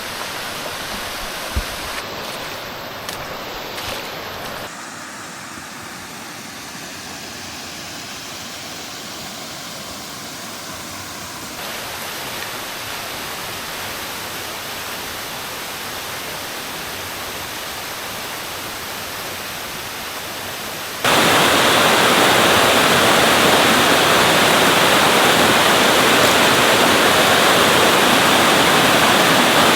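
Creek water rushing over rocks and falls, a steady hiss. It shifts in level a few times, and about 21 seconds in it becomes much louder and fuller.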